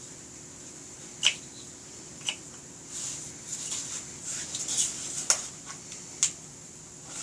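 Hard plastic and metal clicking and rattling as the side handle of a Bosch Bulldog SDS hammer drill is worked loose and twisted round its collar. There are four sharp clicks among softer fumbling and scraping.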